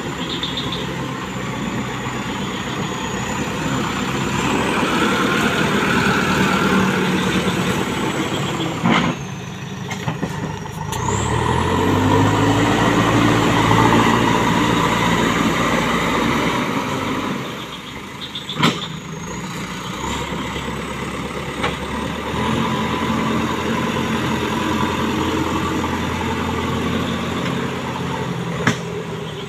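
JCB backhoe loader's diesel engine running and working under load, revving up for several seconds in the middle and then settling back. A few sharp metal knocks stand out over it.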